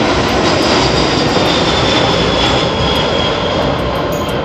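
Boeing C-17 Globemaster III's four Pratt & Whitney F117 turbofan engines, heard as loud, steady jet noise during a low, banking pass. A faint high whine sinks slightly in pitch through the middle.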